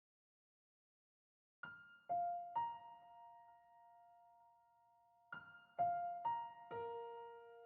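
Background piano music: after a second and a half of silence, a slow melody of single notes, three in a row and then four, each left ringing.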